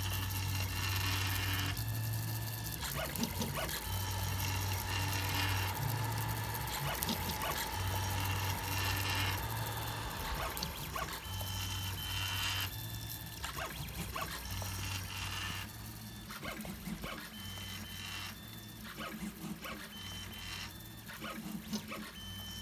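3D printer's stepper motors humming and whining as they drive the bed and print head, the tones switching pitch and stopping and starting every second or so with each move, with light ticks in between.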